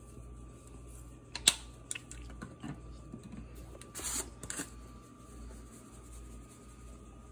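Spice jars and shakers being handled on a kitchen counter. A sharp click about one and a half seconds in is the loudest sound, followed by a few lighter taps and knocks and a short clatter around four seconds in. A faint steady hum runs underneath.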